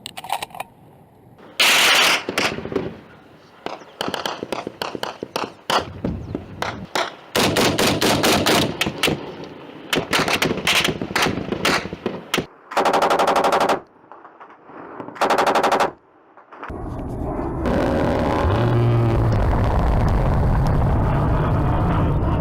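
Automatic-weapon gunfire in a firefight: strings of rapid shots, with two short, very fast machine-gun bursts about two thirds of the way through. A steady, loud rumbling noise follows near the end.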